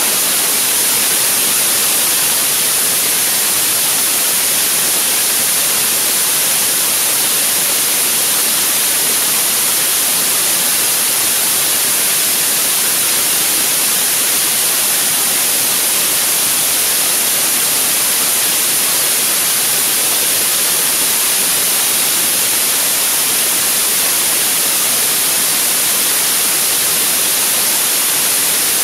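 75-tonne-thrust kerosene/liquid-oxygen rocket engine firing at full thrust on a test stand: a steady, dense hiss-like roar that holds the same level throughout, with no breaks or changes in pitch.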